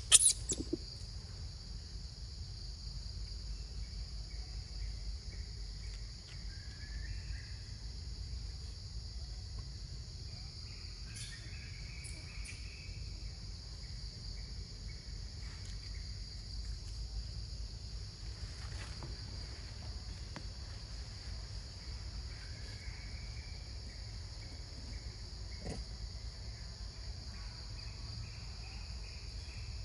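A steady, high-pitched chorus of tropical insects droning without a break, with a low rumble underneath and short, faint chirps now and then. A single sharp click right at the start is the loudest sound.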